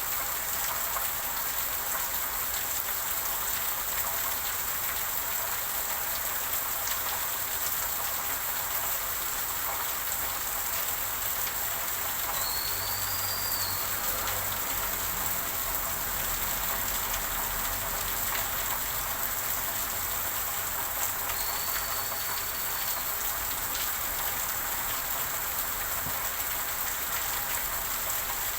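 Steady rain falling: an even hiss with many small drop ticks, unchanging throughout. A faint low rumble sits under it from about twelve to twenty seconds in.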